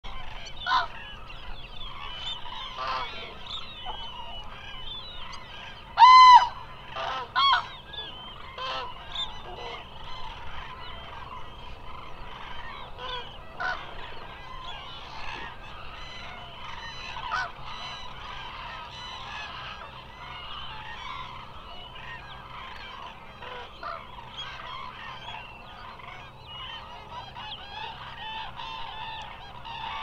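A flock of Eurasian cranes calling in a continuous chorus of overlapping trumpeting calls. Two loud nearby calls stand out, about six and seven and a half seconds in.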